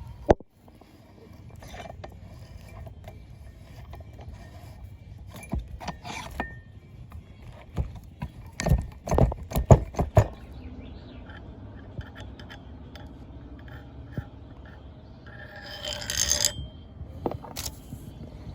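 Metal vise parts knocking and scraping as they are worked on by hand: a run of sharp clanks, the loudest clustered about nine to ten seconds in and again near the end, with rubbing and scraping between them.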